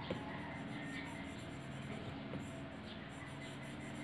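Soft instrumental background music, with faint light taps and strokes of an Apple Pencil tip on an iPad Pro's glass screen.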